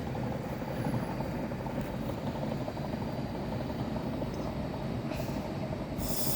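Class 390 Pendolino electric train at the platform with its doors closed, ready to depart, giving a steady low rumble. A hiss joins it about six seconds in.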